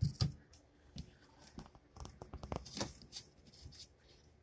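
Handling noise from a phone camera being held and fingered: irregular light clicks, taps and rustling, with a louder knock at the start and a cluster of taps in the middle.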